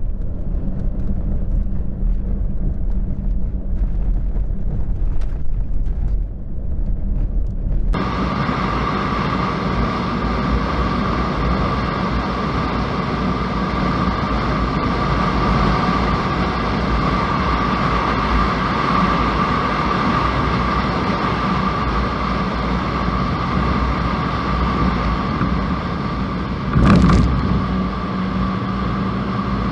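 Vehicle driving, with steady engine and road rumble. About eight seconds in, the sound changes abruptly to a brighter road and wind hiss with a steady whine, and there is a short louder jolt near the end.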